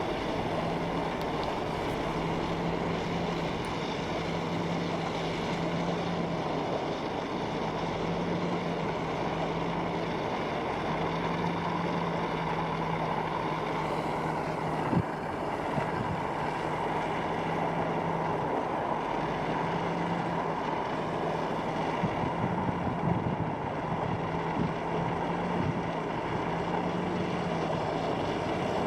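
Truck driving at a steady speed: constant engine hum and road noise, with a brief knock about 15 seconds in.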